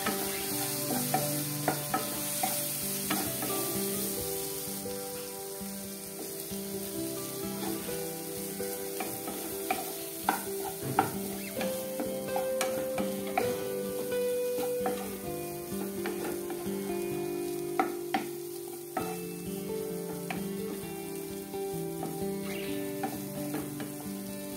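Boiled potato cubes sizzling in hot oil in a nonstick pan, stirred and turned with a wooden spatula that knocks and scrapes against the pan many times.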